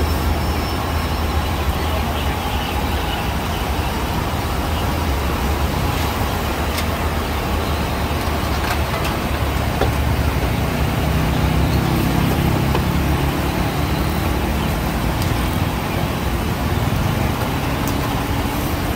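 Battered potato wedges deep-frying in large woks of oil, sizzling steadily, over a continuous low rumble.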